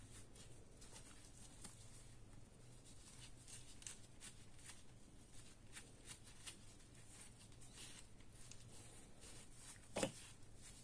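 Faint rubbing of a terry cloth over small brass faucet parts, with soft scratchy ticks scattered throughout. A single sharper knock sounds near the end.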